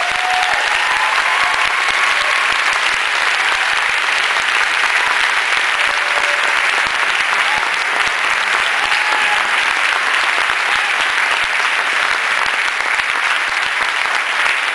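Loud, steady audience applause that holds without a break.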